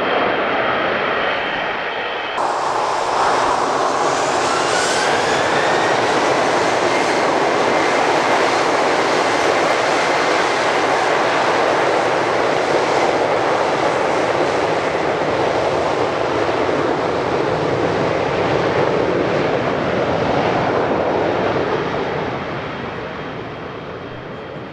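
Twin turbofan engines of a US Navy P-8 Poseidon (CFM56) landing: about two seconds in they spool up with a rising whine into a long, loud, steady roar of reverse thrust, easing off near the end. Before that, a landing Boeing 787's engines run briefly.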